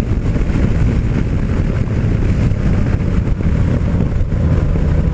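Yamaha MT-09 Tracer's three-cylinder engine running steadily at road speed, heard from the rider's seat. Wind rushes over the microphone.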